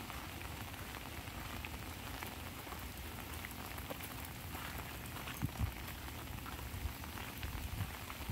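Light rain pattering on an umbrella: a steady hiss dotted with many small drop ticks. A couple of short low thumps come about five and a half seconds in.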